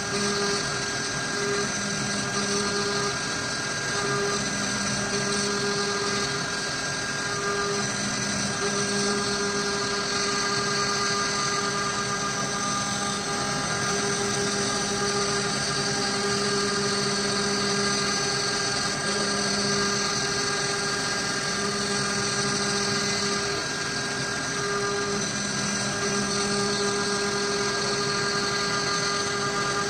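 Avid CNC router's spindle running steadily while its end mill cuts an inlay pocket into a wooden block, a steady whine over the cutting noise. A lower tone cuts in and out every second or two as the cut goes on.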